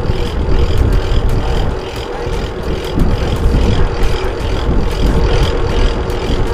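Wind buffeting the microphone of a camera on a moving bicycle, a heavy rumble, with the riding noise of the bike over the path and a fast, regular high ticking.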